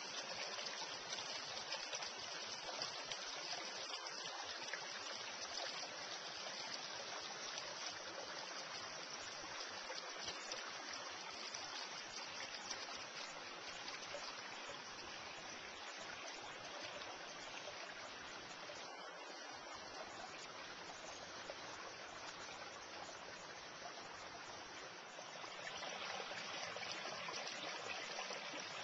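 Small, shallow creek running over stones, a steady rush of water that grows a little louder near the end.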